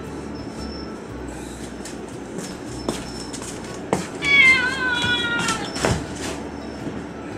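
A tabby cat meows once, a drawn-out call of about a second and a half that falls slightly in pitch, over steady background noise. A few short clicks come before and just after it.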